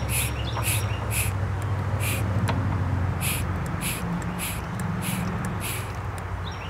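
Hand-operated Mityvac vacuum pump being pumped stroke after stroke, a short hiss of air with each squeeze about twice a second, with a pause partway and stopping about six seconds in. It is drawing down a sealed vacuum line that holds vacuum. A low steady hum runs underneath.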